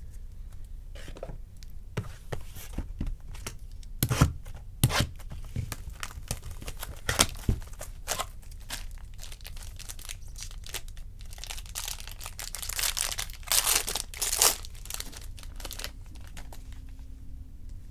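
Foil baseball-card packs being torn open, their wrappers crinkling and crackling. There are sharp rips in the first half and a longer stretch of tearing and crinkling about 12 to 14 seconds in.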